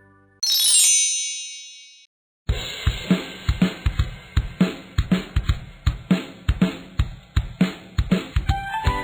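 Background music between children's songs: a bright, sparkling chime sweep that rings out and fades. After a short gap comes an upbeat drum-kit groove of kick and snare at about two hits a second, with a rising run of notes near the end.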